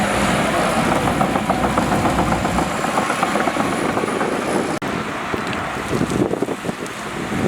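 Shantui DH17C2 bulldozer working: its diesel engine running under load with dense clattering and cracking. The sound cuts out for an instant about two-thirds of the way through.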